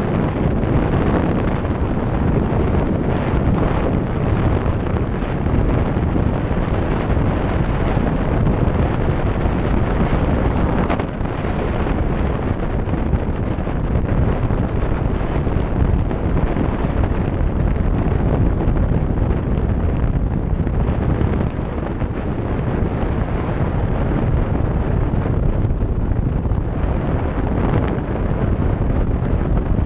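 Wind rushing over the microphone of a camera on a moving motorcycle, with road and engine noise mixed in as a steady rumble.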